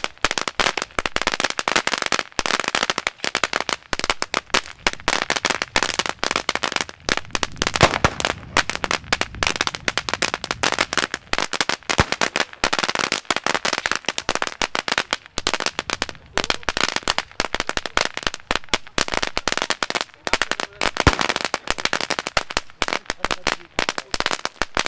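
Firecrackers going off in a rapid, unbroken string of sharp bangs and crackles, many a second, keeping up without a pause.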